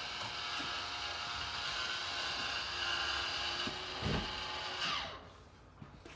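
Powered RV ceiling vent fan's motor running steadily as the fan shuts off and its lid closes, with a thump about four seconds in; the motor stops about five seconds in.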